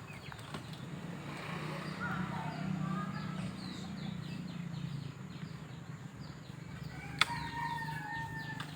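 Chickens calling and small birds chirping repeatedly over a faint low hum. A single sharp knock comes about seven seconds in, followed by a long, level held call.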